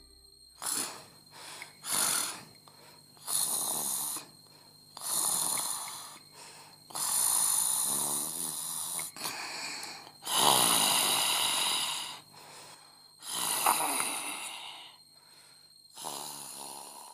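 A sleeping person snoring: about eight long snores, each lasting a second or two, with short pauses between them.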